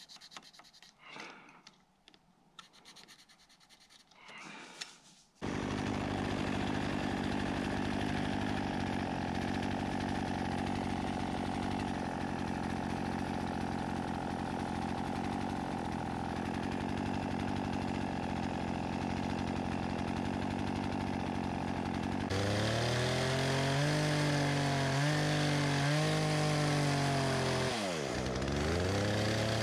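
A pencil scratching on a log for the first few seconds, then a steady engine drone that starts suddenly. Later a chainsaw revs and cuts into a cedar log, its engine pitch sagging under load near the end and picking back up.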